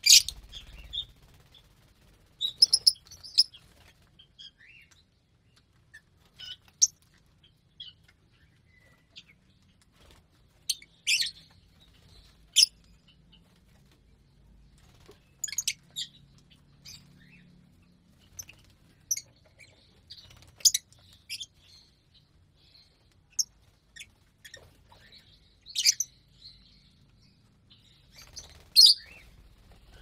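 A flock of lovebirds (Fischer's and masked) giving short, sharp, high-pitched chirps at irregular intervals, sometimes two or three in quick succession, with quiet gaps between.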